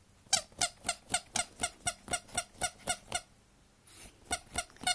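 Squeaky plush porcupine dog toy squeaking in a fast run, about five squeaks a second, as the dog gets at it through a sheet; after a short pause a few more squeaks follow near the end.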